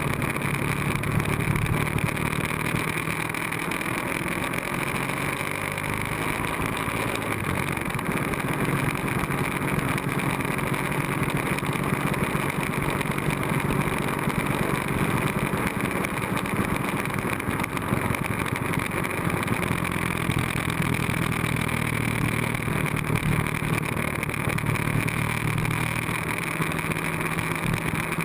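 Sport motorcycle engine running at a steady cruise, with rushing air over it.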